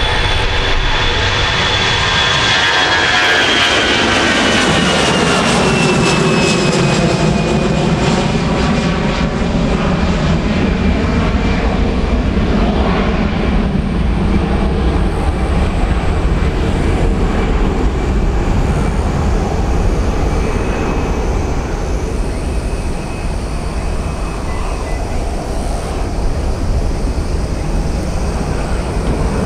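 Airbus A320-200 jet engines at takeoff thrust as the airliner lifts off and climbs away. A high fan whine and the engine tones drop in pitch over the first several seconds as it passes, then a steady roar continues as it recedes.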